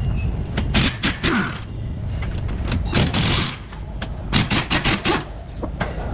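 Sharp knocks and clicks in clusters from hand work on a car's strut assembly, with a short scraping noise in between.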